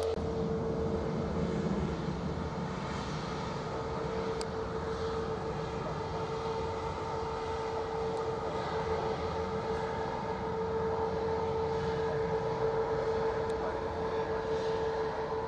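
Airbus A350's Rolls-Royce Trent XWB turbofans running steadily on the ground: a constant engine whine over a broad jet rush.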